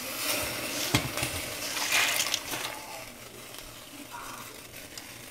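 Drained red kidney beans poured from a metal bowl into a pot of boiling water, splashing and rattling in, with a knock about a second in. After about three seconds the pour ends and a quieter steady hiss of the boiling pot remains.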